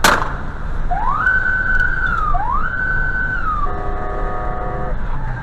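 A sharp click, then a siren-like electronic wail sounding twice, each tone rising, holding, then falling, followed about four seconds in by a steady horn-like chord lasting about a second, over the low rumble of road noise.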